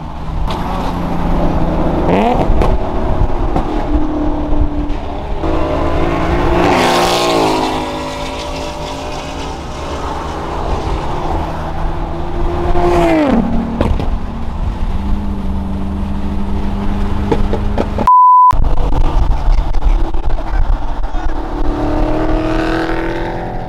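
Car engines accelerating hard on a highway, several pulls rising in pitch with steady engine and road noise between them. Near the end a short, loud, steady beep cuts in.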